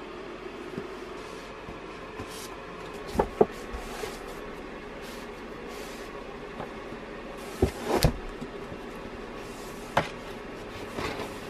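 Books being pulled from and knocked against wooden bookshelves. There are a handful of sharp knocks and thuds: a pair about three seconds in, the loudest pair around eight seconds, one more at ten seconds. A softer sliding scrape of covers comes near the end, over a faint steady hum.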